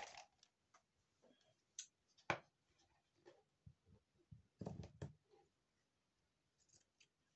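Quiet handling of paper and a strip of lace, with faint rustles and clicks, one sharp click about two seconds in, and a short run of scissor snips cutting the lace a little before five seconds in.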